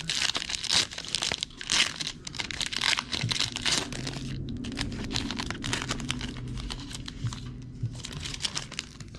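Foil wrapper of a trading card pack crinkling and tearing as it is opened, the crackle densest in the first four seconds and sparser after.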